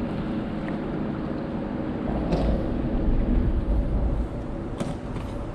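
Steady, gusting low rumble of wind on the microphone over moving water, with two brief clicks about two and a half and five seconds in.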